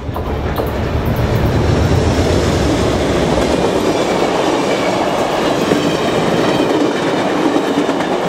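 Amtrak passenger train passing close by at speed. A heavy low rumble dominates the first few seconds as the lead diesel locomotive goes by, then the cars follow with a steady rush and wheels clicking over rail joints.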